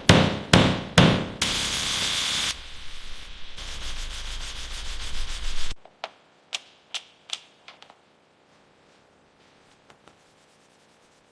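Workshop tool sounds: a quick run of sharp metallic knocks, then about four seconds of steady abrasive rubbing like sanding, then a few faint clicks before it goes quiet.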